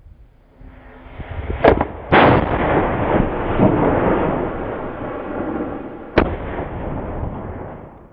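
Maltese 10-inch beraq daylight cylinder shells bursting in the air: two sharp bangs close together about one and a half and two seconds in, the second the loudest, followed by a long rolling rumble of echo, then another sharp bang about six seconds in, with the rumble dying away after it.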